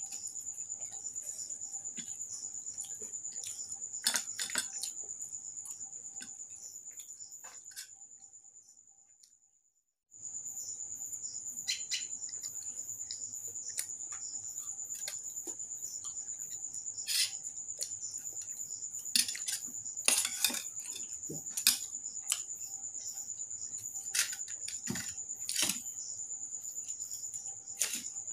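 Close eating sounds of someone eating luchi and khichuri by hand from a steel plate: scattered sharp clicks and smacks, the loudest cluster in the second half. Under them runs a steady, high-pitched, insect-like pulsing trill. Everything fades out to silence just before the middle and comes back abruptly.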